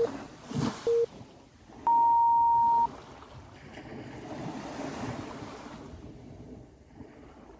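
Electronic interval-timer countdown over sea waves washing in: two short low beeps a second apart, then one longer, higher beep about a second after that, the usual cue that an exercise interval starts.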